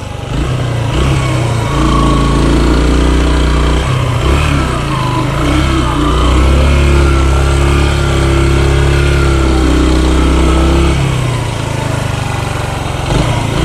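Yamaha dual-sport motorcycle engine pulling up a steep, slippery dirt trail, its revs rising and falling as the rider works the throttle, then easing off about eleven seconds in.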